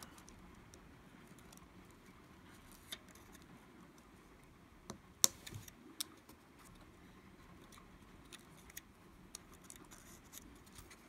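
Faint, scattered clicks and taps of small tools and parts being handled on an opened iPhone 5, with one sharper click about five seconds in.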